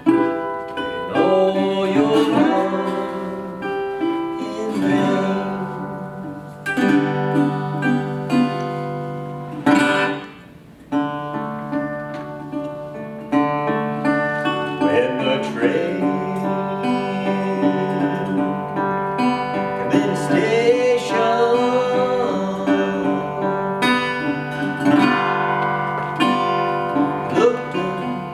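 A 2000 National Delphi steel-bodied resonator guitar in open G tuning playing an instrumental blues passage, some notes gliding in pitch. The playing dips briefly about ten seconds in.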